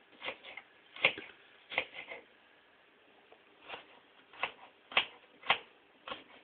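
Kitchen knife cutting an onion on a wooden cutting board: about nine irregular knocks of the blade on the board, with a pause of about a second and a half in the middle.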